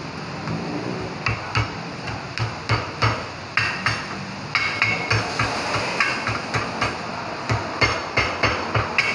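Steel ball-peen hammer striking repeatedly on a car's front steering knuckle, sharp metallic clinks about three a second, starting about a second in.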